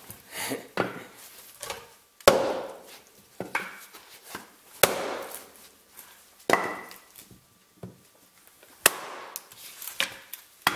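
A 1.25 lb fiberglass-handled hatchet head striking and splitting a piece of fresh-cut cherry on a chopping block: a series of hard chopping blows a second or two apart, with wood cracking as the split opens.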